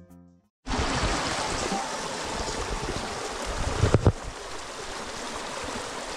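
Steady rush of running river water, with a single knock about four seconds in.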